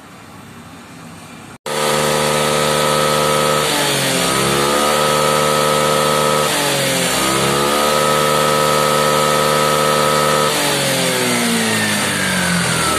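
Honda Grazia scooter's single-cylinder engine running at a raised, steady speed. Its pitch dips and comes back twice, then falls away near the end. It starts abruptly about a second and a half in, after faint background noise.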